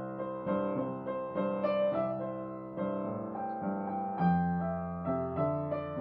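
Upright piano played solo after the singing has ended: a slow, gentle passage of struck chords and melody notes, each ringing on and fading, about two new notes or chords a second.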